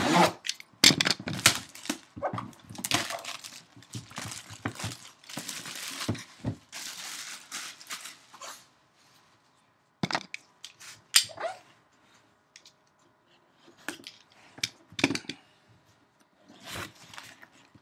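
A sealed trading-card box being opened by hand: wrapping and cardboard crinkling and tearing in a dense run for about eight seconds, then scattered rustles and taps.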